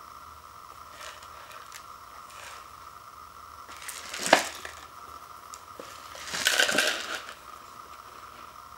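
Hands turning and gripping a sealed paper instant-ramen cup, its sides rubbing and creaking under the fingers. There is a sharp crackle about four seconds in and a longer crackling stretch at about six and a half seconds.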